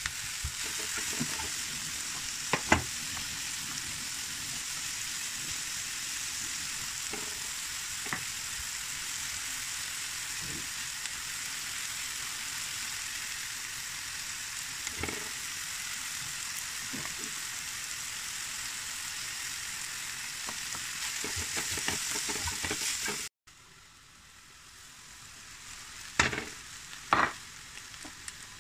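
Chopped onions sizzling as they fry in oil in a non-stick frying pan, with now and then a knock of the spatula against the pan. The sizzle drops suddenly about 23 seconds in and goes on quieter, with two sharp knocks near the end.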